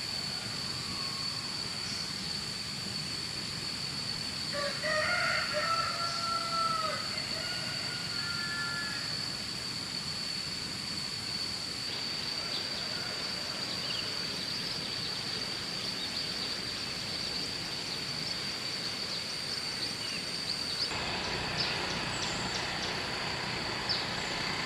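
A rooster crowing once about five seconds in, with a shorter, fainter call a few seconds later. Under it are a steady high-pitched whine and constant background hiss.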